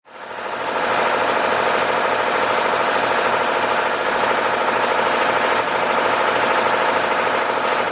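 Tractor engine running steadily, fading in over the first second.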